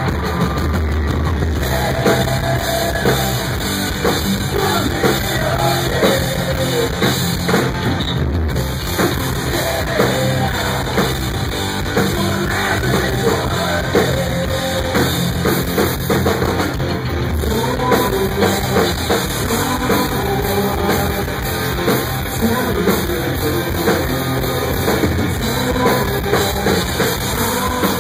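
Live rock band playing: electric guitar, bass guitar and drum kit, with a sung vocal line over them.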